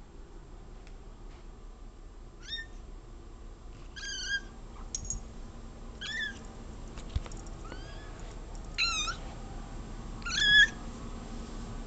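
A domestic cat giving a string of about seven short, high-pitched meows, one every second or so, starting a couple of seconds in and loudest at the end. She is meowing at a bug on the wall.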